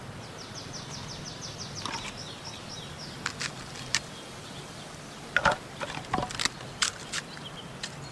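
A small bird gives a rapid high trill of about ten notes a second, falling off in the second second. Scattered sharp clicks and snaps follow, loudest a little past the middle, over a steady outdoor hiss.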